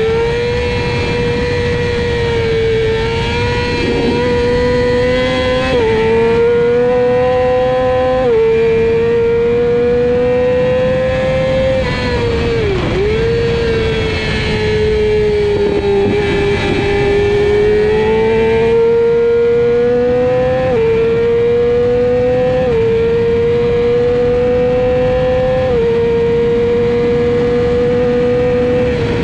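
Racing sport bike engine held at high revs, heard from on board. Its pitch climbs slowly in long pulls and jumps abruptly at several gear changes, with a short sharp dip in revs about 13 seconds in as the throttle is closed. A steady rush of wind runs underneath.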